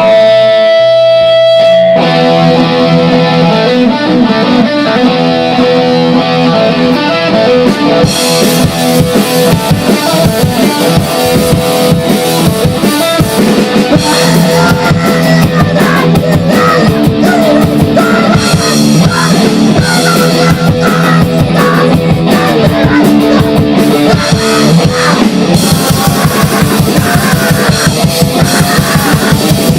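Grindcore/noise band playing: heavily distorted electric guitar and drum kit at full loudness. A held guitar chord opens, then the full band comes in about two seconds in, and the drums move into fast, even strokes near the end.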